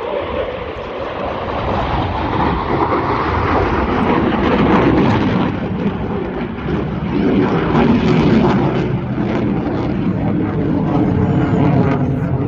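Eurofighter Typhoon's twin EJ200 jet engines in flight, a loud, steady roar of jet noise that swells slightly a couple of seconds in.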